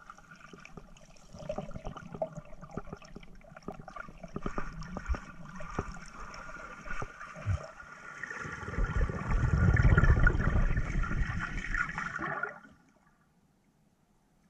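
Underwater water noise picked up by a submerged camera's microphone: gurgling and bubbling with scattered clicks. It swells loudest in the later part, then cuts off suddenly near the end.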